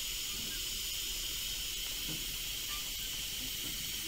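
Steady hiss of steam escaping from a miniature live-steam locomotive, even and unbroken.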